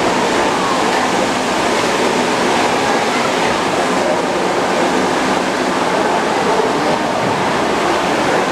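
Steady, loud rushing noise with no rhythm or individual strikes, of the kind made by running water or air-handling equipment in an enclosed glasshouse.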